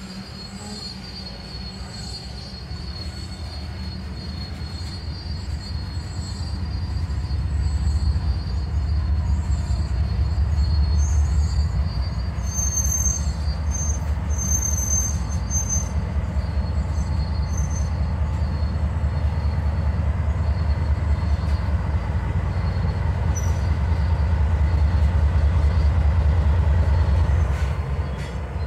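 Freight train of covered hopper cars rolling past at close range: a steady low rumble of wheels on rail that builds over the first several seconds, with thin, high wheel squeal coming and going. Near the end the train's Norfolk Southern diesel locomotives come alongside.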